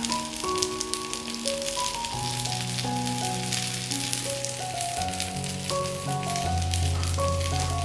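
Background music, a melody of held notes with a bass line coming in about two seconds in, over the steady crackle of chicken jalar rolls sizzling in ghee on a tawa.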